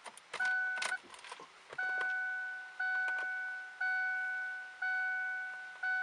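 2002 Ford Focus warning chime dinging about once a second, each ding fading before the next, six in all. Keys jangle and click during the first couple of seconds.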